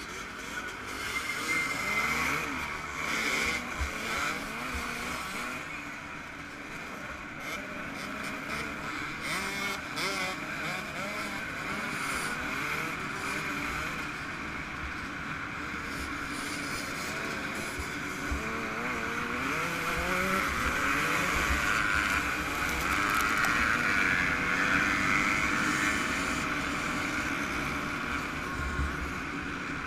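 Yamaha YZ125 two-stroke single-cylinder motocross engine running under hard throttle, its pitch repeatedly rising and falling with throttle and gear changes.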